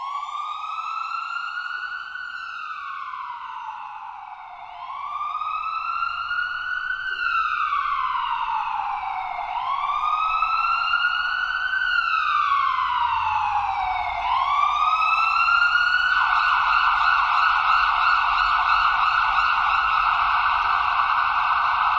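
Ambulance siren on a slow wail, rising and falling about every five seconds, then switching to a fast yelp about two-thirds of the way in. It grows louder as it goes.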